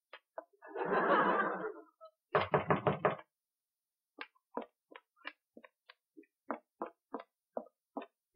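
Quick footsteps on a hard floor, about three sharp taps a second, through the second half. Earlier there is a short loud burst of noise and then a stuttering burst.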